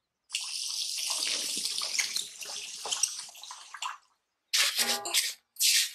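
Water running from a tap into a sink, steady at first and then tapering off until it stops about four seconds in. A few short swishing bursts follow near the end.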